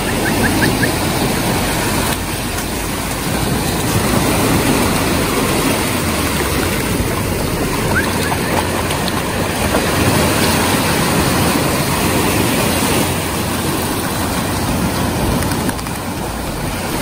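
Small waves breaking and washing over shallow water at the shoreline: a steady rush of surf, with wind rumbling on the microphone.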